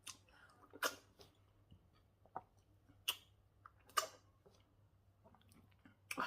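Wet mouth smacks and clicks of someone eating fufu with banga soup: a handful of sharp smacks about a second apart, with smaller ticks between, over a faint steady low hum. A louder breathy sound comes in at the very end.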